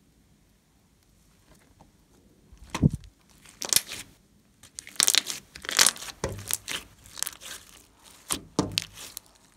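Glossy slime being squished and pressed by hand, with irregular sticky crackles and pops of trapped air. It starts about three seconds in after a quiet stretch.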